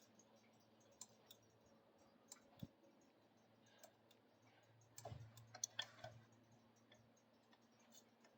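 Near silence with a few faint, scattered clicks and taps, and a short cluster of them about five seconds in.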